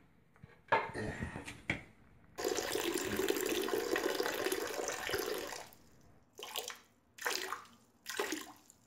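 A man urinating into a toilet: a steady stream splashing into the bowl water for about three seconds. Before it, about a second in, a clatter as the toilet seat goes up. A few short bursts of noise follow near the end.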